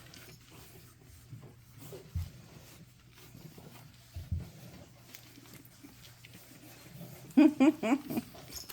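Five-week-old pug puppies giving a quick run of short, high yaps near the end. Before that there are a few soft thumps.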